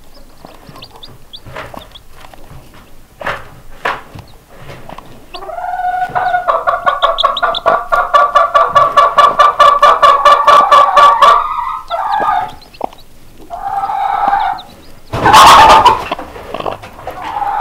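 Chickens calling. A loud, rapidly pulsing call runs from about five and a half seconds in to about eleven, followed by a shorter call and then a loud, harsh squawk near the end.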